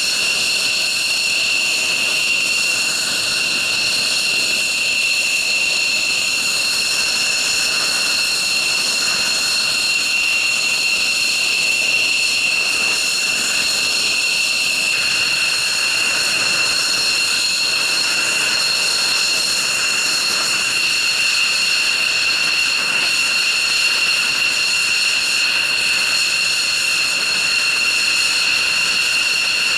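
F-16 fighter jet's turbofan engine idling on the ground before taxi: a steady, loud whine with several shrill high tones over a rushing noise.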